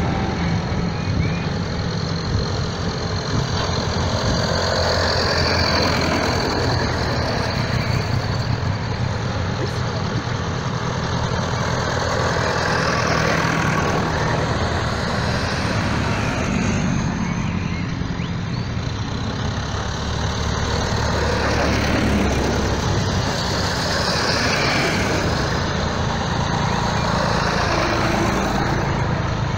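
A procession of old tractors and a Land Rover driving past one after another on a lane, their engines running steadily and swelling and fading as each goes by.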